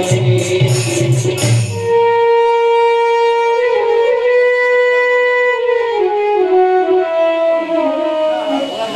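Live accompaniment music: for the first two seconds a drum and jingling cymbals play along with a reedy wind instrument, then the percussion stops and the wind instrument carries on alone with a slow melody of long held notes, stepping down in pitch near the end.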